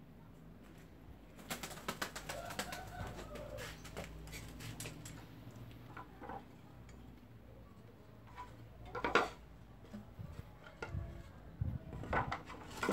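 Cut wooden speaker-box panels being handled, shuffled and set down on a concrete floor: a scatter of knocks and clatters, the loudest about nine seconds in and a few more near the end.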